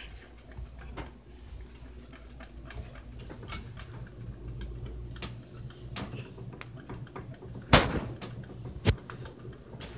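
Knocks and rubbing from someone climbing up onto a bunk bed while holding a phone, with two sharper thumps near the end.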